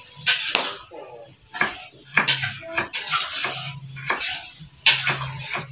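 Knife chopping raw chicken on a wooden cutting board: sharp, irregular chops, roughly one or two a second.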